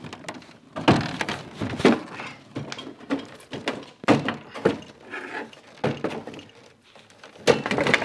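A string of knocks and thunks from a window air conditioner unit being shifted and set into a window frame. The loudest come about one and two seconds in and near the end.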